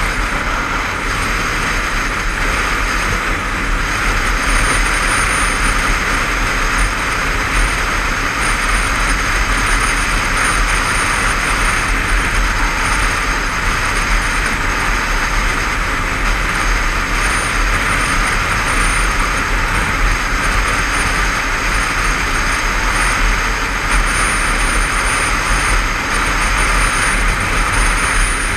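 Steady wind rush and road noise at motorway cruising speed, picked up by a helmet-mounted GoPro on a Honda CBF500 motorcycle, with the bike's parallel-twin engine running steadily underneath.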